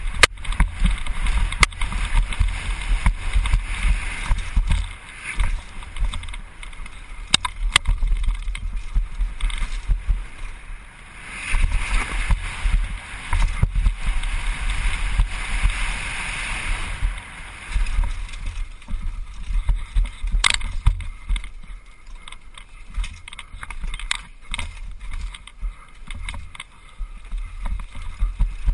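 Wind buffeting a helmet-mounted camera's microphone during a downhill mountain bike run, with the bike rattling over a rough dirt trail. A louder hiss swells for several seconds about midway, and a few sharp knocks come from hits on the trail.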